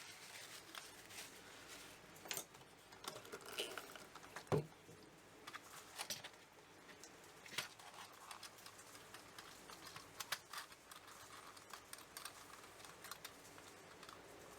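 Faint, irregular small clicks and taps from handling the parts of a Commodore 64 keyboard's slash key, its contacts just cleaned, with a slightly louder knock about four and a half seconds in.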